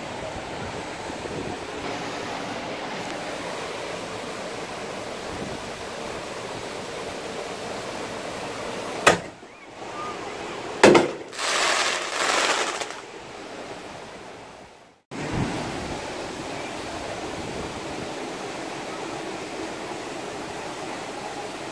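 Steady surf and wind noise, broken by two sharp firework bangs about two seconds apart; the second is followed by a couple of seconds of hiss.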